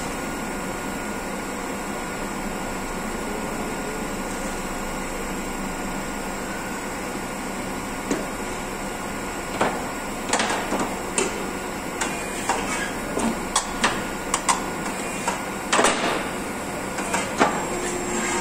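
Heavy-duty truck tire changer at work: a steady mechanical noise, then from about eight seconds in a run of irregular metal clanks and knocks as its tool arm and the truck tire clamped on it are handled.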